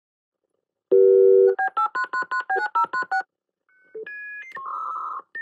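Dial-up modem connecting to the internet. About a second in comes half a second of telephone dial tone, then a quick run of about ten touch-tone dialing beeps. After a short pause the first modem handshake tones start, stepping between pitches.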